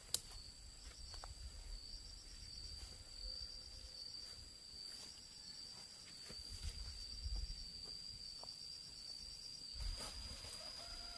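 An insect trilling steadily, one even high-pitched tone with a fast pulsing texture, over faint low rumbles and a few light clicks.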